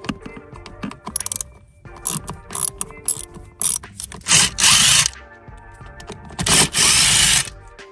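Ratchet clicking while the 7/32-inch screws holding a heater blower motor are backed out, with two louder runs of about a second each, near the middle and near the end.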